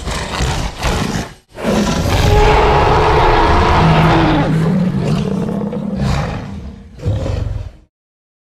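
Spinosaurus roar sound effect: two short growls, then one long roar lasting about five seconds, then a last short growl.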